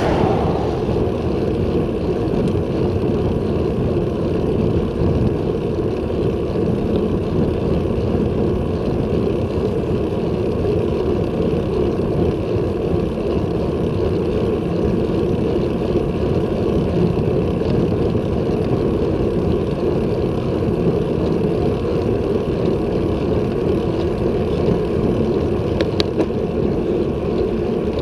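Steady wind rushing over a bicycle-mounted action camera's microphone, mixed with tyre noise on asphalt while riding. A car passes at the very start, its sound falling in pitch as it goes by, and there is a short click near the end.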